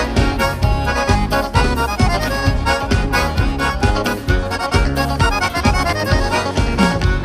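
Bandinha dance music led by accordion, with a steady bass and drum beat.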